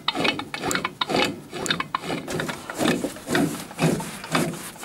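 A motorcycle engine's flywheel magneto being turned over by hand, with rasping, rubbing strokes about twice a second. The plug is sparking from the hand-turned magneto.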